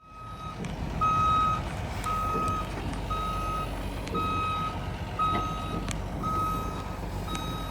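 Excavator's travel alarm beeping about once a second, each beep about half a second long, over the steady low rumble of its diesel engine as it moves.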